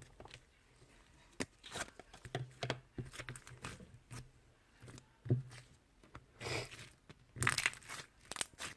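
Sticky slime being worked by hand, squeezed and pulled apart, giving irregular bursts of crackling, tearing sounds with short clicks and brief pauses between them. The loudest bursts come near the end.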